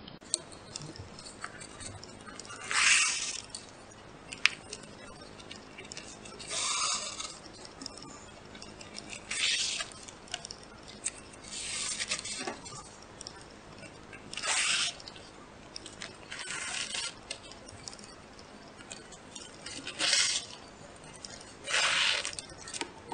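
Fabric shoelace being pulled through the punched holes of a laminated paper lacing card, a short rustling swish every two to three seconds, about nine in all.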